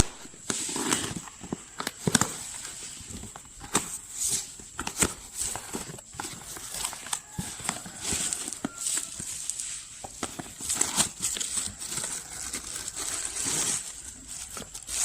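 Handling noise: irregular clicks and knocks with some crinkling, over a faint steady high whine.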